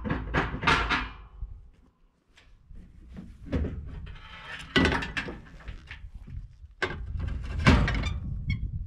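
A series of heavy clunks and thuds at uneven intervals, the loudest near the end, over a low rumble.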